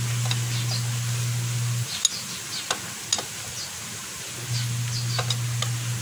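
A few sharp metal clicks and taps from a long socket-wrench bar being worked on the screws under a Suzuki Raider J 110's engine. Behind them runs a steady low hum that drops out for about two and a half seconds in the middle, with faint high chirps.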